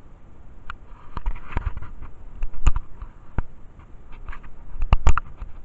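Handling noise from the handheld camera being moved: a dozen or so irregular knocks and clicks with dull thumps, loudest about two and a half seconds in and again near the end.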